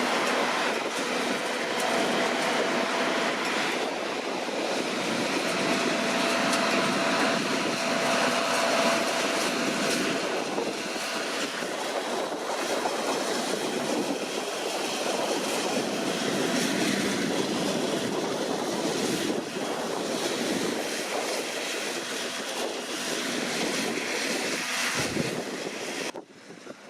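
Deutz-Fahr C9306TS combine harvester working: a dense, steady mechanical clatter with a faint steady whine in the first half. The level drops suddenly about a second before the end.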